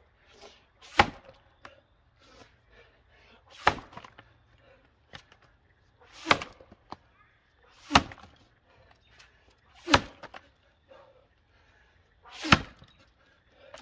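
Axe blows biting into a white pine log during an underhand chop: six sharp strikes, roughly two seconds apart.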